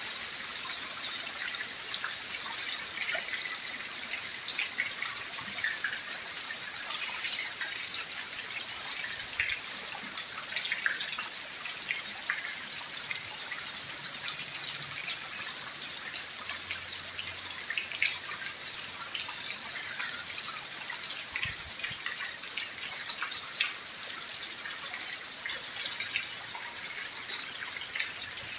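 Steady rainfall: an even hiss, strongest in the high range, with many individual drops ticking through it.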